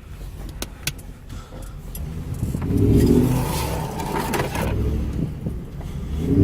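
Ford Crown Victoria Police Interceptor's 4.6-litre V8 pulling away, heard from inside the car: the engine rises in revs a couple of seconds in and then holds. A few light clicks come in the first second.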